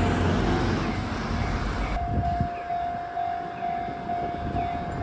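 Japanese railway level-crossing bell ringing, one tone repeating about twice a second, over a low rumble that drops away about two seconds in.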